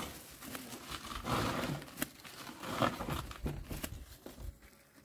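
Irregular rustling and crackling of something being handled, with a sharp snap about two seconds in.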